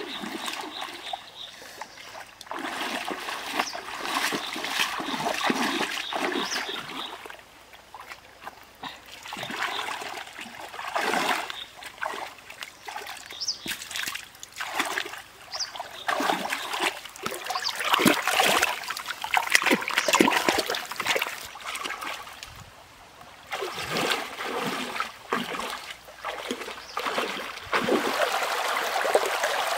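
Water splashing irregularly as a person wades through a shallow stream and gropes along the bank with a hand, over the trickle of the flowing water. The splashing comes and goes, easing off twice.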